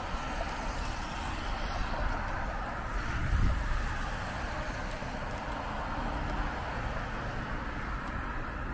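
Steady city street traffic noise of passing cars and other vehicles, with a brief louder low rumble about three and a half seconds in.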